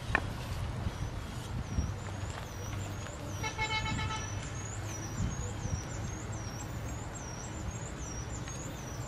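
Occasional sharp chops of a cleaver on a wooden cutting board as chicken is cut up, over steady outdoor background with a low hum and repeated high chirps. About three and a half seconds in, a short horn toot sounds once.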